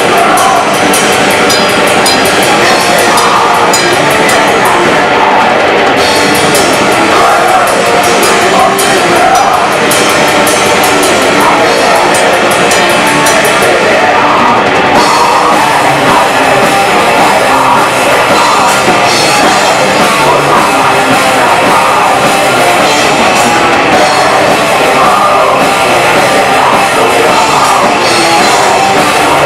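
Live black metal played by a full band: distorted guitars and fast, dense drumming with constant cymbal strokes, loud throughout. The cymbals drop out briefly twice, about five seconds in and again about halfway through.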